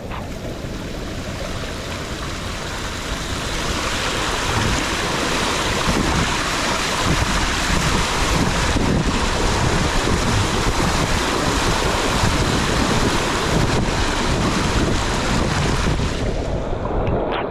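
Storm wind buffeting a GoPro's microphone, mixed with the rush of floodwater. It is a steady, loud rushing that builds over the first few seconds and eases off near the end.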